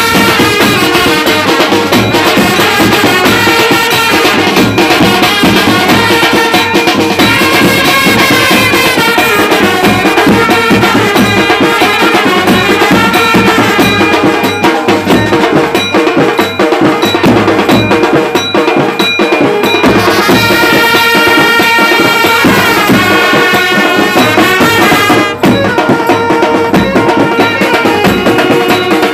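Indian street brass band playing loudly: side drums and a large double-headed bass drum beat a fast rhythm with handheld jingles, while trumpets carry a rising and falling melody.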